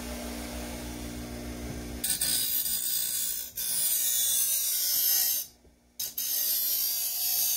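Bench grinder motor running, then from about two seconds in a steel chainsaw bar is pressed against the spinning wheel: a harsh, hissing grind as the bar's rail edge is ground down to remove the lip that catches in the wood. The grinding breaks off for about half a second roughly five and a half seconds in, then resumes.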